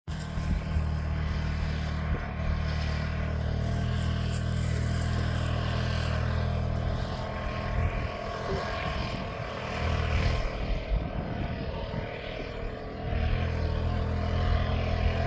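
Off-road vehicle engine running hard on a hill climb, its low note steady at first, wavering and dipping in the middle, then steady again near the end.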